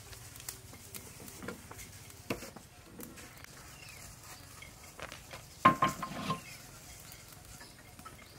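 A large metal wok clanks down onto a metal drum stove a little past halfway: a short cluster of metallic knocks with a brief ringing tone. Before it, light clicks and knocks of firewood sticks being handled.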